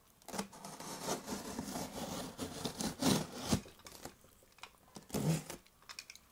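Utility knife slitting the packing tape and cardboard along the top of a box: a run of irregular scratchy strokes, then a few softer scrapes about two seconds later.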